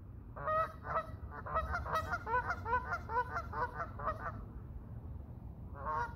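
Canada geese honking: a rapid run of short calls for about four seconds, then a brief burst of honks near the end.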